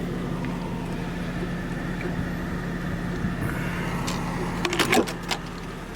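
Car engine idling, a steady low hum heard from inside the cabin, with a short cluster of clicks and rattles about five seconds in.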